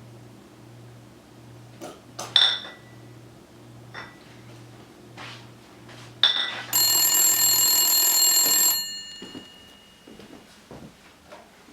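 Two sharp clicks, then a loud bell-like ring lasting about two seconds, over a low hum that pulses about twice a second and stops near the end of the ring.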